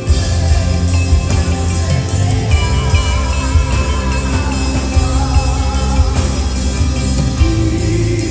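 Live band music with a steady beat, with a wavering melody line held through the middle.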